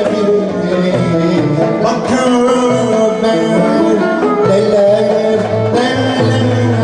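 Turkish art music played by an ensemble, several instruments carrying a melody with occasional percussion strokes.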